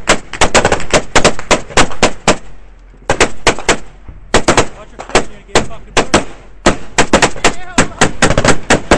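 Close automatic gunfire from soldiers' rifles and machine guns, in rapid strings of shots that stop briefly about two and a half, four and six seconds in before starting again.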